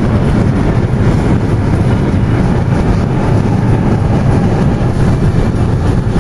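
Steady road and wind noise inside a Chevrolet car's cabin, driving at highway speed, with a deep low rumble under it.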